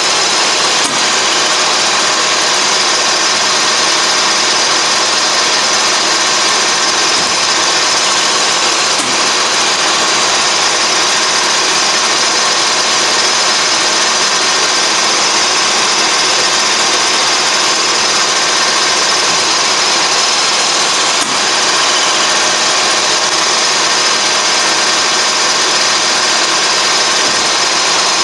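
Colchester Triumph 2000 lathe running steadily with its chuck spinning, a constant gear-driven whine with several fixed tones over a mechanical hum.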